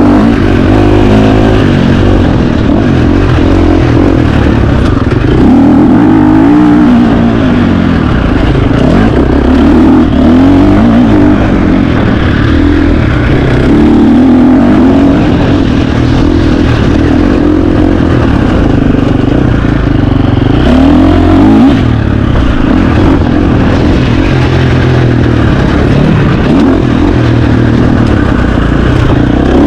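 KTM 350 XC-F four-stroke single-cylinder dirt bike engine ridden hard off-road, its pitch climbing and dropping again and again every second or two as the throttle is opened and shut and gears change.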